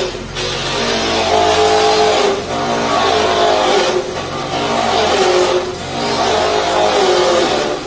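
Small petrol engine driving a branch-chopping machine whose blades shred fresh branches pushed into the chute. The engine note sags several times, about every one and a half to two seconds, as it comes under load from the wood, then picks back up.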